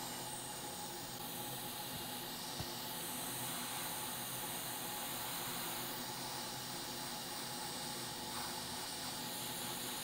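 Hot air rework station blowing a steady hiss of hot air onto a circuit board to melt flux and solder paste; the hiss changes in tone a few times.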